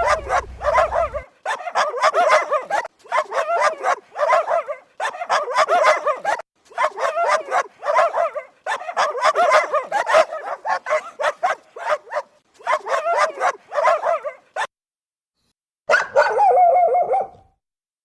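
Dog barking over and over in fast runs of barks with short breaks between them. Near the end there is a pause of about a second, then one longer, drawn-out bark.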